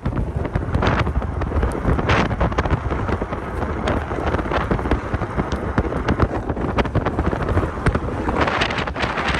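Blizzard wind buffeting the microphone: a steady, rough rumble with hissing gusts swelling about a second in, around two seconds in, and again near the end.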